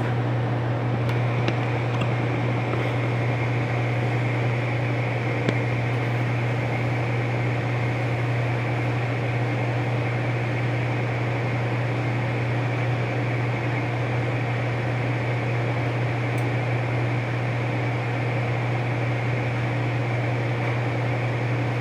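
Tempstar gas furnace's fan motor running: a steady low hum with a thin, steady whine that comes in about a second in.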